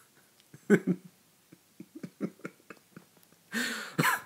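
A man's stifled laughter: short voiced giggles in quick pulses, then a breathy gasp of laughter near the end.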